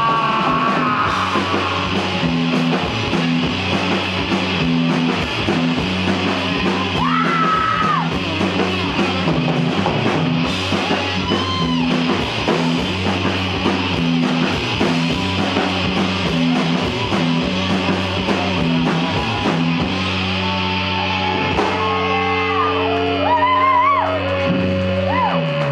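Live rock band playing an instrumental stretch of a song, with electric guitar, bass and drums and a few brief sung or shouted notes over it.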